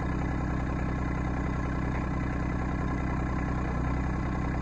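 RK25 compact tractor engine idling steadily, an even, unchanging running sound.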